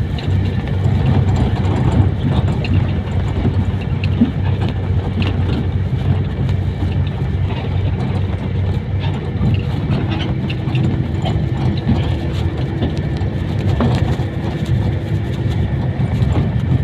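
Motor vehicle running steadily: a continuous low engine drone and road rumble, with scattered small rattles and clicks.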